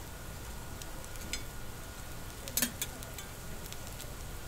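Burger patties sizzling on a flat-top griddle while a round metal patty press and spatula flatten them, with a few sharp metal clicks against the griddle, the loudest about two and a half seconds in.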